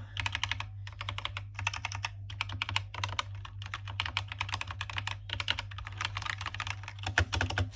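Rapid typing on an HK Gaming GK61 61-key mechanical keyboard: fast runs of key-switch clacks broken by a few short pauses. A steady low hum sits underneath.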